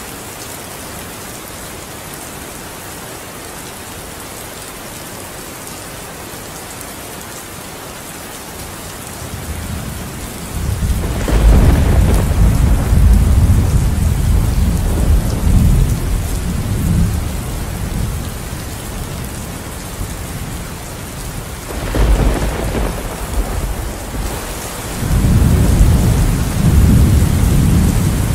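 Steady rain, then thunder: about ten seconds in, a crack opens a loud, deep, rolling rumble that lasts several seconds and dies away; a second sharp clap comes later, and a third long rumble builds near the end.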